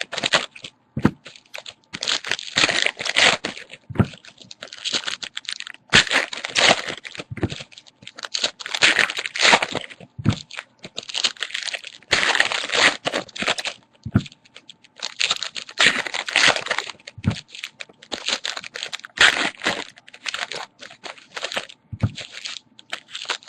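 Trading cards being handled and flipped through: repeated rustling and scraping, about a second at a time, with a light knock every few seconds.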